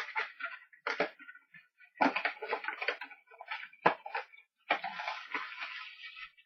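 Packaging crinkling and tearing as a Mystery Minis blind box is opened by hand, in several bursts with two sharp snaps.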